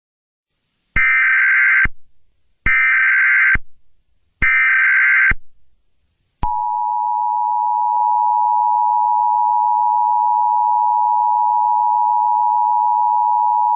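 Emergency Alert System header: three short warbling data bursts of about a second each, starting about a second in, then about six seconds in the steady two-tone EAS attention signal, which holds on. The header and tone announce the start of a new alert.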